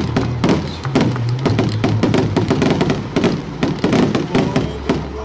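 Fireworks going off in a rapid barrage, sharp bangs and cracks several times a second, over music with a steady bass line.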